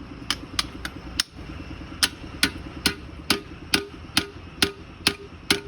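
Hammer blows on metal during truck gearbox work: a few quick strikes, then a steady series of about two strikes a second, each with a short metallic ring.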